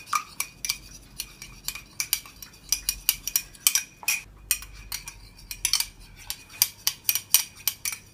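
Metal spoon stirring an oil-and-vinegar dressing in a small ceramic cup, clinking rapidly and irregularly against the cup's sides.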